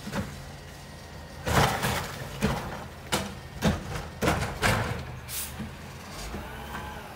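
Waste Management garbage truck with a Curotto Can cart arm working: a steady engine hum under a string of short, loud bangs and hisses, about seven in four seconds. Near the end there is a faint wavering whine.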